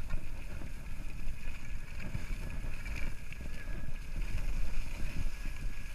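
Wind buffeting an action camera's microphone during a ski run: a low rumble that swells and dips with the gusts of movement.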